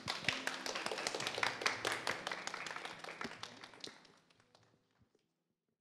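Small audience applauding with dense hand claps that fade out about four seconds in.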